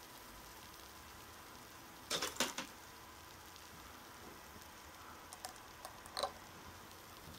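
Acid fizzing faintly on a porous rock, releasing gas, which marks a carbonate rock. About two seconds in comes a quick cluster of knocks, with a few lighter clicks near the end, as the rock is handled on the table.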